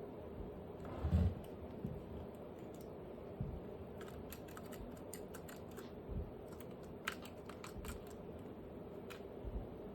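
Scattered light clicks and a few soft knocks, as of small objects being handled, over a faint steady background hum.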